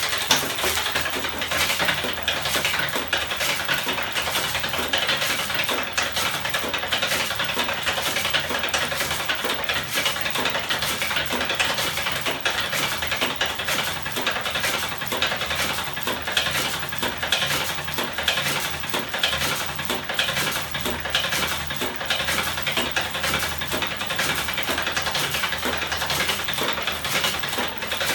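Home-built battery- and electric-motor-driven ornithopter 'magnet engine' running: a steady, fast metallic clatter from its moving parts and frame, with a low hum underneath.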